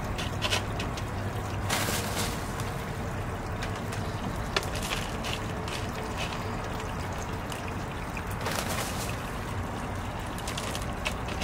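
Expanded clay pebbles (hydroton) clattering now and then as they are packed by hand into a hydroponic net cup, clearest about two seconds in and again near the end. Under them runs a steady trickling, water-like noise with a low hum.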